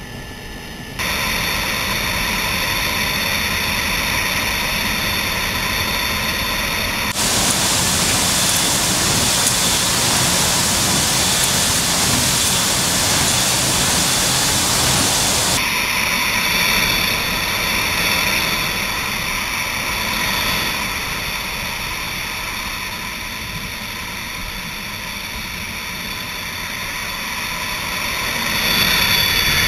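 Steady rush of wind and engine noise inside a C-17's cargo hold through the open paratroop door in flight. The noise changes abruptly about a second in, about seven seconds in, and about fifteen seconds in. It is loudest and most even between about seven and fifteen seconds in.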